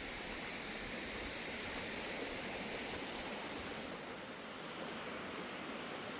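Steady rush of a mountain creek, Seneca Creek, flowing past the campsite, a little softer about four seconds in.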